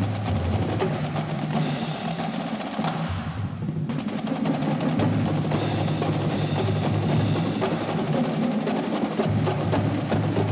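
College marching band playing: brass holds low sustained notes under a drumline's rapid, continuous drum strokes. The high end thins briefly about three seconds in.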